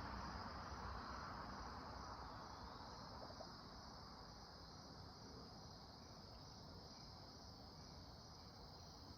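Faint, steady chirring of crickets, with a broad low noise fading away over the first few seconds.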